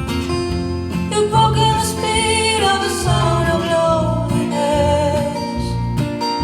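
Live country band playing: strummed acoustic guitar over a steady bass, with a wavering melody line coming in about a second in.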